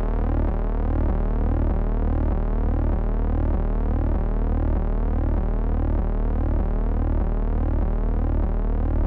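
Synthesized electronic intro sound: a steady low drone under rising tone sweeps that repeat about twice a second, giving an endlessly climbing pitch.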